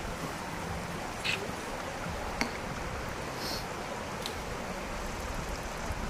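Steady rushing outdoor background noise, with about four faint, brief high-pitched ticks and chirps spread through it.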